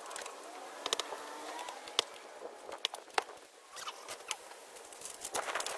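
Concrete blocks being handled and set in place by hand: scattered sharp clicks and knocks of concrete on concrete, with light scraping between them.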